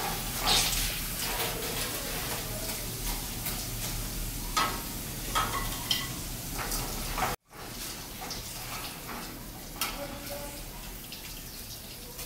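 Steel ladle scraping and clinking against a kadai as fried chicken pieces are scooped out, over a faint sizzle. The sound cuts out for an instant about seven seconds in.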